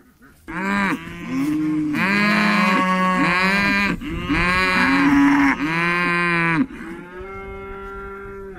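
Cattle mooing: several loud, overlapping calls that rise and fall in pitch for about six seconds, then a quieter, steadier moo near the end.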